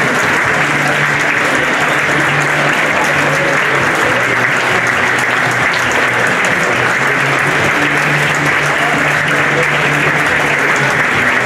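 Football crowd applauding in a stadium stand, a steady unbroken clapping, with music playing underneath.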